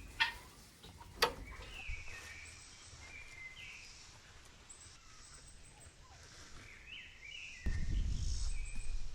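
Wild birds chirping faintly in outdoor farmyard ambience, with two short knocks in the first second or so. Near the end a steady low rumble sets in.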